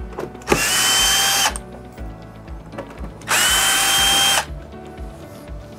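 Cordless drill-driver running in two bursts of about a second each, with a steady motor whine, backing screws out of an RV air conditioner's ceiling assembly.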